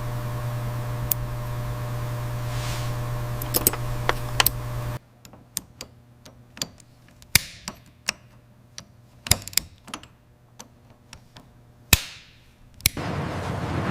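A steady low mechanical hum with a few clicks that cuts off suddenly about five seconds in. It leaves scattered, irregular sharp clicks and knocks, and a louder noisy hum comes back just before the end.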